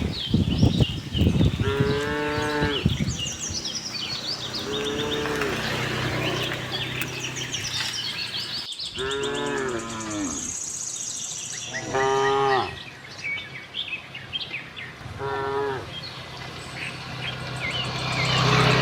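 Cattle mooing: about five separate drawn-out moos, each a second or two long, with small birds chirping faintly above them.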